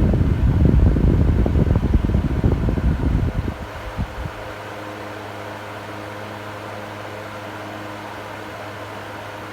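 Electric fan running: for about the first three seconds its air blast buffets the microphone in loud gusts, then it drops to a steady low motor hum.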